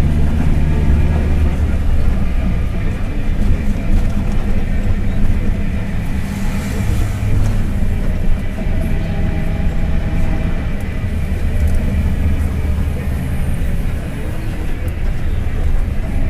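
Front-engined Mercedes-Benz OF-1721 BlueTec 5 city bus running under way, its low diesel drone changing in pitch and strength as it drives, with the low rumble of its driveshaft (cardan).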